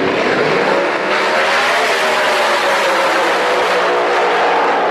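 V8 drag racing car at full throttle, launching off the line and accelerating down the strip. Its pitch climbs over the first two seconds, then slowly falls as the car pulls away.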